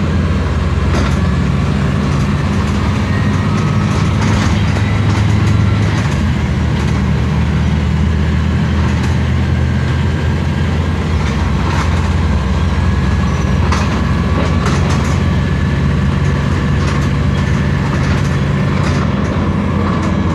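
Steady low rumble of road vehicle travel, with light clicks and knocks scattered through it.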